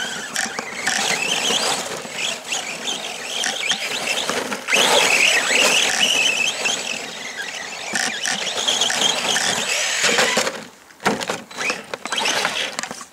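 Arrma Senton 3S BLX RC truck's brushless motor whining as it is driven over wet grass, its pitch rising and falling with the throttle. It is loudest from about five seconds in, dips briefly near the end, then comes back in short bursts.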